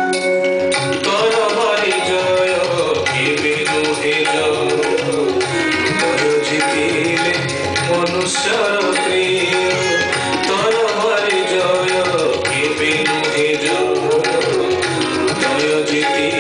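Odissi dance accompaniment: a pitched hand drum plays a steady rhythm under a melody that keeps rising and falling.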